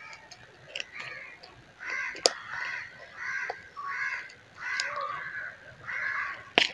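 A crow cawing over and over, a steady run of short caws a little under one a second, with two sharp clicks, one about two seconds in and a louder one near the end.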